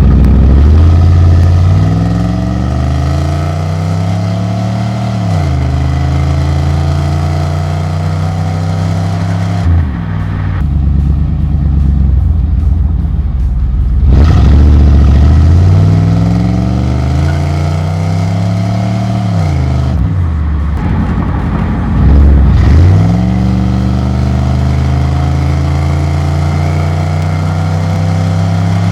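1991 Cadillac Eldorado's 4.9-litre V8 pulling away under acceleration, its pitch climbing and then dropping sharply as the automatic shifts up, several times over. Near the end it holds a steadier pitch at cruise.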